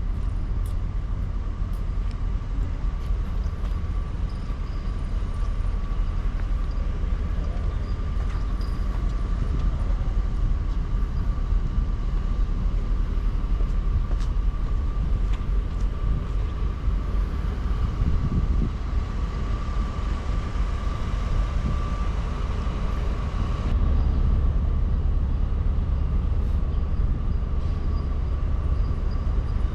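Steady low rumble of a vehicle in motion, with a faint steady whine held over it; the rumble shifts slightly about 24 seconds in.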